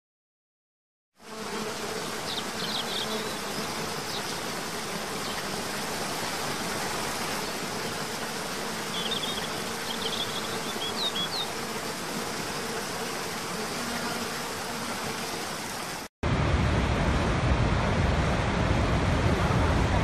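Steady rushing noise of falling water that starts abruptly about a second in, with two brief clusters of short high chirps. About sixteen seconds in it cuts to a louder, deeper roar.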